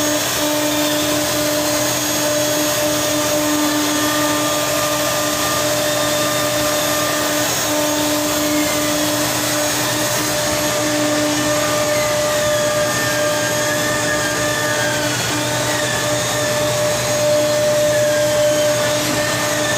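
A workshop machine runs steadily with a constant motor hum and whine. From about eight seconds in, a fainter high tone wavers up and down over it.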